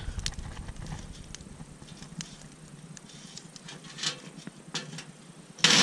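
Wood fire crackling in an open box wood stove: scattered sharp, irregular pops and snaps over a faint hiss of burning.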